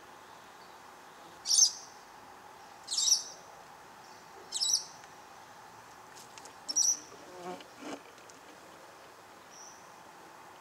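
Four short, high chirps about a second and a half apart, over a faint steady background hum. Shortly after the last chirp comes a brief low buzz, fitting an Australian native stingless bee flying close past the hive entrance.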